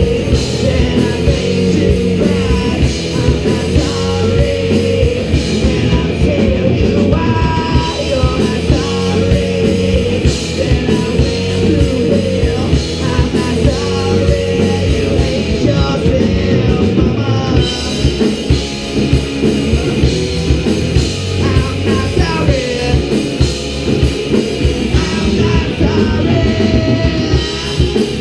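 Live rock band playing: electric guitars, bass guitar and drums, with a singer's voice over them.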